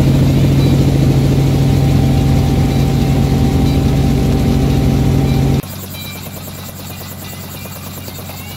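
Steady drone of a small Robinson helicopter's engine and rotors heard from inside the cabin in low flight. About five and a half seconds in, it cuts off abruptly to a much quieter, steady background.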